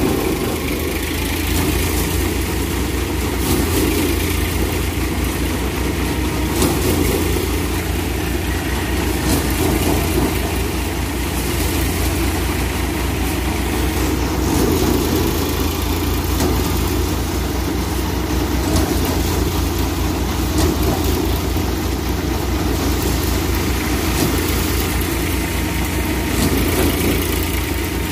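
Tractor engine running steadily under load, driving a Dasmesh paddy thresher through its shaft. The threshing drum whirs as bundles of paddy are fed in, and the whole makes a continuous heavy drone with a fast low pulse.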